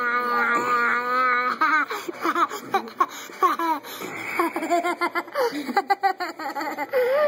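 A young child's voice: one long, steady high-pitched vocal sound for about the first second and a half, then a run of short giggles and laughter.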